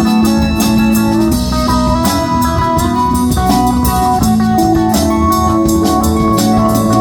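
Live rock band playing: guitar notes over a drum kit.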